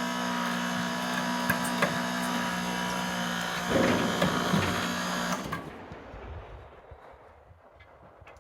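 Small power-tool motor running at a steady high speed, with a rougher, grinding patch about four seconds in, then shutting off abruptly about five seconds in.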